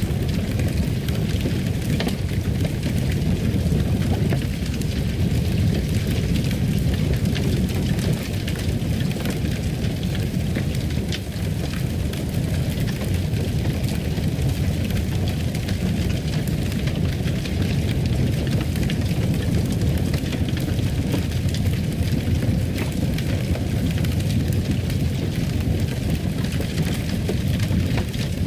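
Fire crackling in a fireplace: a steady low rumble of flames with scattered small pops and snaps.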